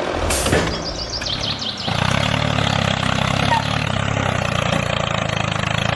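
A tractor-type engine running steadily with an even low chug. There is a brief sharp clatter about half a second in.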